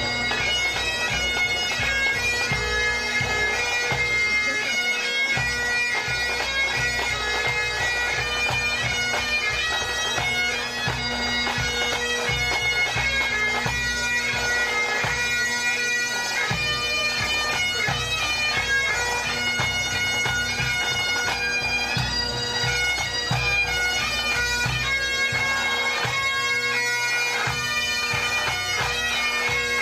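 Pipe band playing on the march: Great Highland bagpipes sounding a melody over steady drones, with snare, tenor and bass drums beating out the rhythm.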